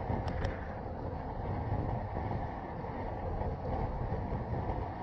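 Steady wind rush over a handlebar-mounted action camera, mixed with the rolling rumble of road-bike tyres on asphalt at speed. Two brief high-pitched chirps come near the start.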